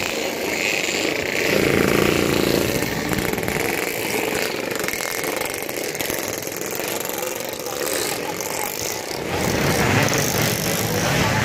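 Motorcycle engines running and passing close by in a crowd of bikes. A deeper engine sound comes back strongly about nine seconds in.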